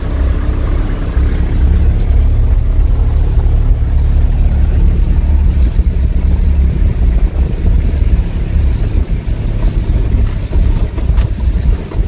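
Camper van driving slowly over a wooden plank bridge, heard from inside the cab: a loud, steady low rumble of engine and tyres on the planks.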